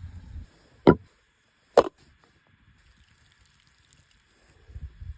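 Two sharp chopping knocks, about a second apart, with low rustling handling sounds at the start and again near the end.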